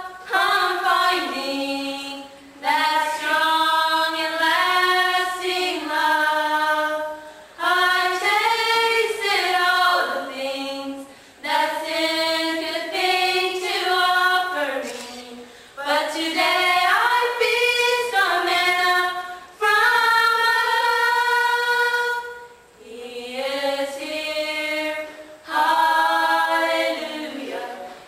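Four girls singing together a cappella, their unaccompanied voices in phrases of a few seconds with short breaks for breath between.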